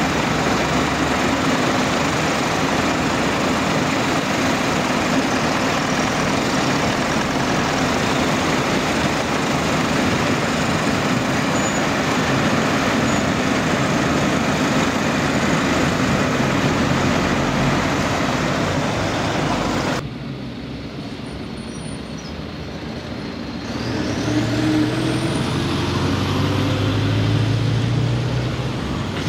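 Asphalt paver's diesel engine and machinery running steadily at a paving site, with a tipper lorry at its hopper. Suddenly quieter about two-thirds in, then a Mercedes tipper lorry's diesel engine revs up with a rising whine.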